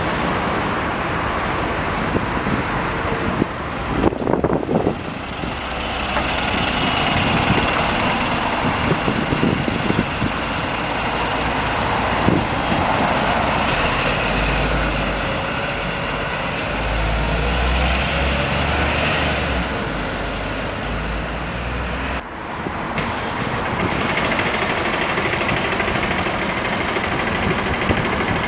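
Diesel buses running at a bus station, engines idling and moving off. The sound changes abruptly twice, with a heavy low engine rumble in the middle stretch.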